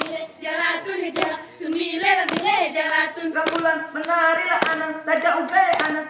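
Saman dancers singing a chant together while striking out sharp hand claps and body slaps in time, a dozen or so strikes over the sung line.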